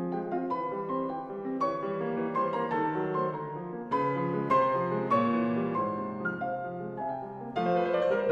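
Solo piano music, several notes at once with the louder chords struck about a second apart, some with a quick run of higher notes.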